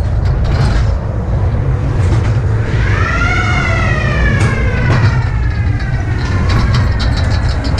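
Ghost train car rumbling steadily along its track, with knocking early on. About three seconds in a wailing tone joins it, rising quickly, then slowly falling for about four seconds.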